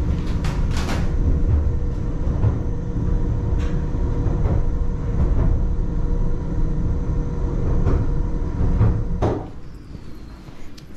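Tourist mine train running along its narrow track, heard from inside the wooden carriage: a steady low rumble with scattered knocks and rattles. A little over nine seconds in, the rumble cuts off abruptly to a much quieter background.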